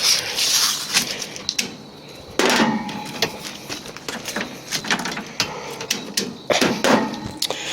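Scattered clicks, taps and knocks from hands handling a window air conditioner and its power cord while it stays dead, with two brief mumbled vocal sounds.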